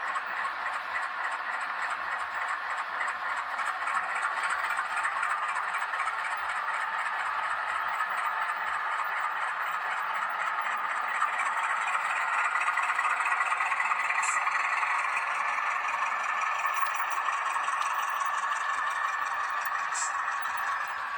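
H0-scale model locomotive (a Renfe Alco 313) running on the layout: a steady motor and gear whine whose pitch shifts slowly, with a fine rattle of wheels on the track and a couple of small clicks near the end.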